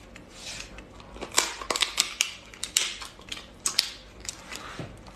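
Cooked Australian lobster tail shell crackling and snapping as the meat is pulled out of it: a run of sharp, irregular clicks, thickest from about a second in to near the end.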